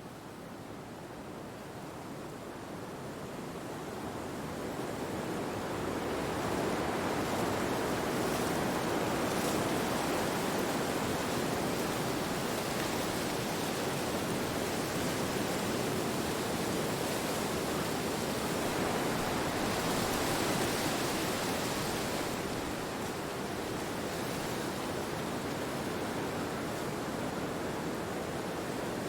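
Steady rush of wind, an even hiss with no distinct gusts or tones, swelling over the first six seconds or so and easing off a little after about twenty seconds.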